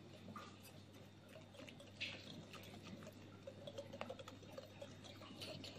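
Faint wet stirring of a spoon working melted butter and powdered sugar into a donut glaze in a bowl, with a few light clicks of the spoon against the bowl, over a low steady hum.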